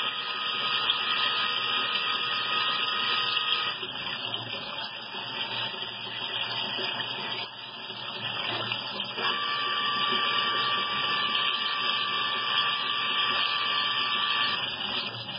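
Tsugami BS-12BIII CNC Swiss-type lathe machining bar stock under a flood of cutting oil: a steady whirring machine noise mixed with the rush of coolant. A thin high whine stops about four seconds in, and a similar, slightly lower whine comes back about nine seconds in and stops near the end.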